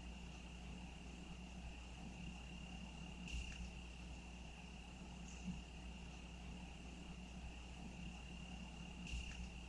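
Faint, steady high trill of crickets, held on one note. Two short, louder sounds stand out, about three and a half seconds in and near the end.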